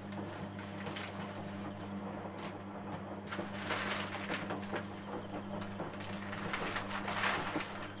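Clear plastic flower wrapping crinkling and rustling as hands handle cut rose stems, in irregular bursts that are strongest about halfway through and near the end, over a steady low hum.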